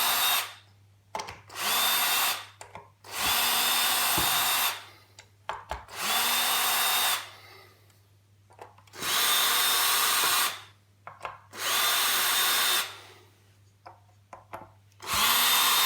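Cordless drill-driver backing out small Phillips screws in about seven short bursts. Each burst spins up and then runs steady for a second or so, with small handling clicks in between.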